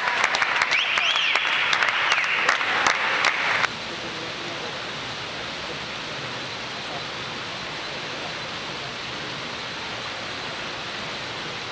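Spectators clapping and cheering after a dive, with one rising-and-falling whistle, cut off abruptly about three and a half seconds in, leaving a steady hiss.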